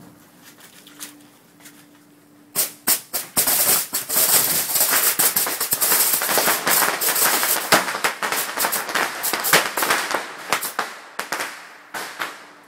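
A bucketful of bottle rockets going off together. After a few quiet seconds come several sharp pops, then a dense, continuous barrage of cracks and hissing launches for about seven seconds, which thins to scattered pops near the end.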